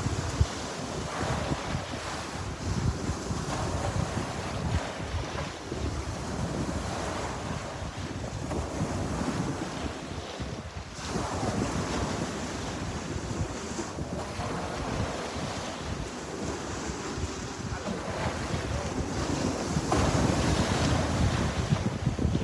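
Sea surf washing in and out, with wind buffeting the microphone; the wash swells about eleven seconds in and again near the end.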